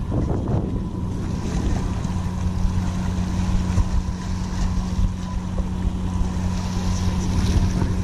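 Wind buffeting the microphone with a fluttering low rumble, over a steady low hum.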